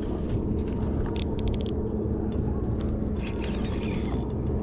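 Low, steady rumble of wind on the microphone, with a quick run of sharp clicks about a second in and a few scattered ticks as hands work a spinning reel.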